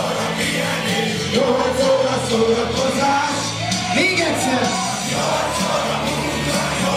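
Loud party dance music with a steady beat and a singing voice, with people yelling and shouting along.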